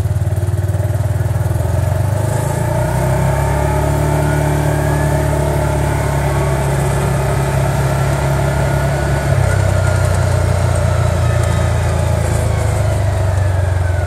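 Vector 500 4x4 UTV engine pulling up to speed in one smooth, unbroken run, its pitch rising over the first few seconds and then holding steady, with a fainter whine that rises and falls near the end. With the driver's seat belt buckled, the seat-belt speed governor does not cut in, so the engine runs without kicking in and out.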